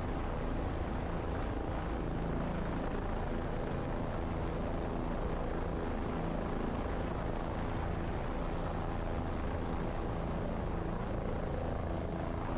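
Helicopter running steadily, its engine and rotor making an even, unbroken drone.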